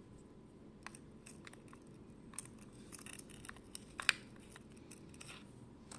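Scattered light clicks and taps of plastic from earbuds being handled and seated in their charging case, one sharper click about four seconds in, over a low steady hum.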